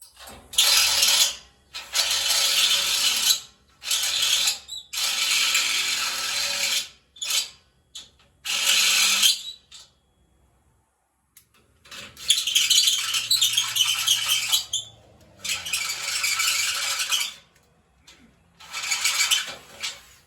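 A handheld power tool working on metal, run in about nine bursts of one to three seconds each, with a pause of about two seconds near the middle.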